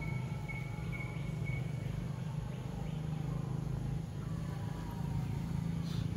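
Outdoor forest ambience: a steady low hum with faint high-pitched chirping and thin falling whistles, and a single short click near the end.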